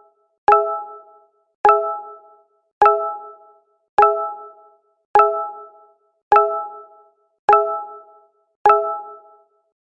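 Google Hangouts notification chime looped back to back, sounding eight times at an even pace of a little under one a second. Each is a short, bright multi-tone ding that starts sharply and fades within about half a second.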